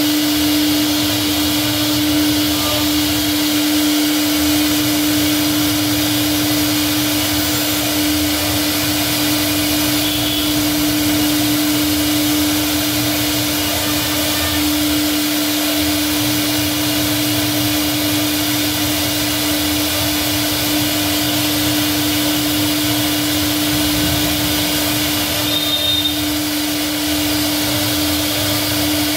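CNC router spindle running steadily while its bit carves an ornamental relief into a wooden panel: a constant whining hum over the hiss of the bit cutting wood.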